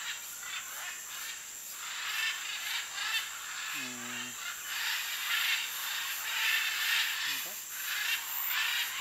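A flock of macaws and other parrots at a clay lick giving a continuous chorus of harsh, raucous squawks that swells and fades in waves.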